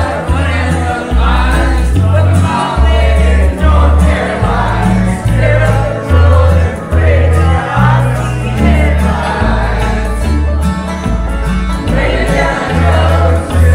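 Karaoke: a group of people singing together into microphones over a loud country-style backing track with a strong, stepping bass line.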